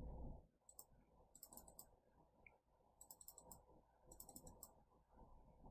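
Faint computer mouse clicks in several short quick runs, placing chips on an online roulette board.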